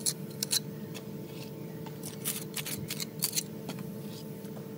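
Steel trowel scraping and tapping stiff repair mortar as it is packed into a hole in a concrete block wall: a series of short, sharp scrapes, thickest in the middle, over a steady low hum.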